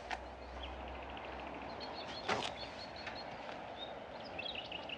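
Small birds chirping faintly in short high calls over quiet outdoor ambience, with a brief scuffing noise about two seconds in.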